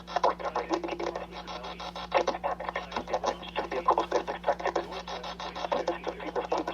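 Badly degraded live-stream broadcast audio: chopped into a constant rapid crackle of clicks and dropouts, with muffled broken-up sound underneath and a steady low hum.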